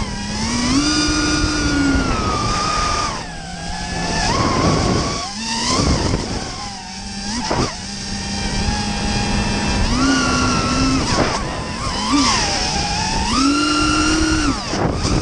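FPV quadcopter's brushless motors and propellers whining, the pitch gliding up and down with the throttle and dropping away several times as the throttle is chopped.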